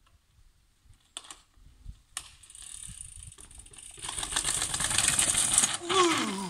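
Gravel bike riding down a long flight of steps: two sharp clicks about a second and two seconds in, then the tyres knocking down the steps and the bike rattling, growing louder, and crunching out onto loose gravel at the bottom. A brief falling squeal near the end.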